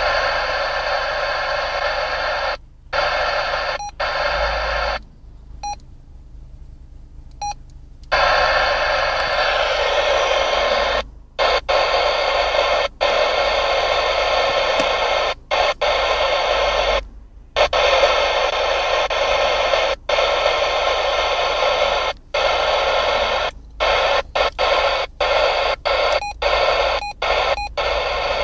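TTI 881 CB radio receiver static hissing from its speaker, cut off again and again by short silences, several of them carrying a brief electronic beep from the set's controls.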